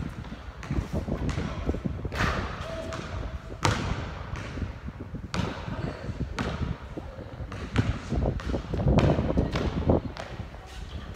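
A basketball bouncing on a hard court: single sharp thuds at irregular spacing, over a steady low rumble.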